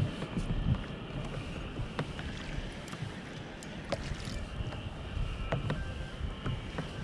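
Water washing and lapping against the plastic hull of a Hobie Outback fishing kayak, with wind rumble on the microphone and a few sharp clicks and knocks scattered through it.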